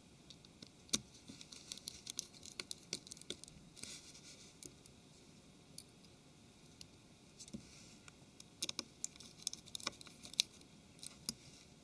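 Small irregular clicks and scratches of a precision Phillips screwdriver seating and turning tiny screws in a Samsung Galaxy S4's rear housing, with fingers handling the phone. The clicks come in two busy spells with a quieter stretch in the middle.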